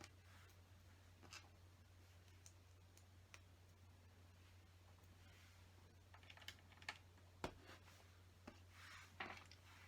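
Faint, scattered clicks of small plastic LEGO pieces being handled and pressed together, with a few sharper clicks in the second half, over a steady low hum.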